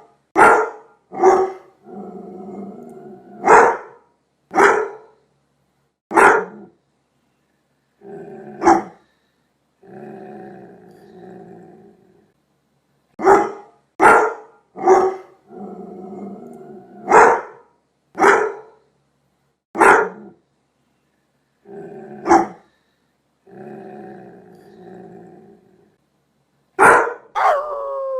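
A dog barking in sharp single and double barks, alternating with low growls that last a second or two each. The bark-and-growl sequence plays through twice. Near the end, a howl begins, falling in pitch.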